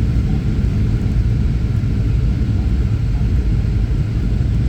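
Steady low rumble of jet engines and rushing air inside the cabin of a Boeing 737 in flight, unchanging throughout.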